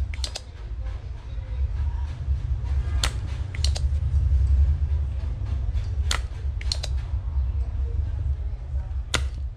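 Sharp clicks that repeat about every three seconds, each a loud click followed about half a second later by two quick softer ones, over a steady low hum.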